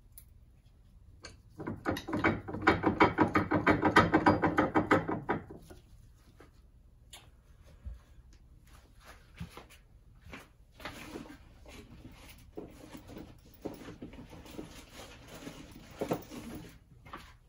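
A fast, even run of mechanical clicking for about four seconds, from a workshop tool or mechanism, then quieter scrapes and clicks of metal parts being handled.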